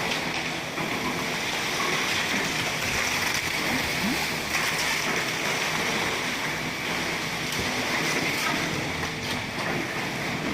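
Electric hydraulic concrete mixer pump running steadily on a job site: a constant rushing, churning noise with no breaks.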